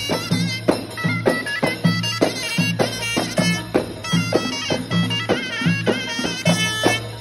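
Folk band playing live: a shawm (double-reed horn) plays a reedy, wavering melody over a steady beat of large frame drums, about three strikes a second.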